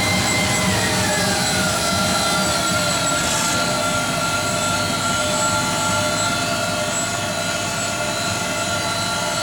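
Amada Wasino GLS-50A optical profile grinder running, a steady motor hum and whine made of several tones. About a second in the whine drops in pitch by about a third, then holds steady at the lower pitch.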